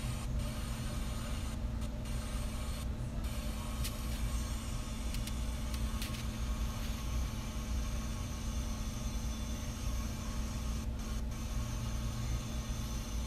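Steady low machine hum and rumble with a faint hiss, with a few faint ticks several seconds in.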